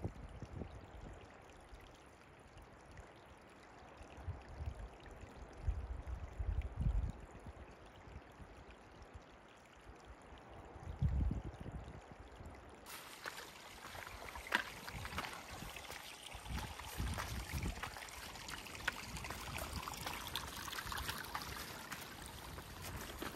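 Low gusts of wind on the microphone over a faint hush. About halfway through, the sound jumps to a louder, steady rush of running water, with scattered clicks of footsteps and trekking poles on the stony trail.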